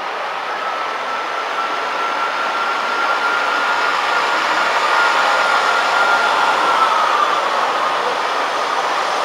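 Class 158 diesel multiple unit moving at the platform: a steady rail and engine noise with a thin high whine that holds and then fades away about seven seconds in.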